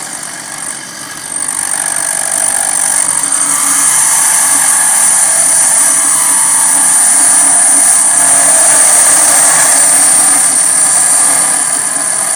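Home-built bearing lathe cutting: a 3/4 hp electric motor spins a metal bearing through a rubber wheel while the cutting tool trims the bearing's rounded lip square. The cut gives a steady, high-pitched hiss over the motor's running; it swells about a second in and holds.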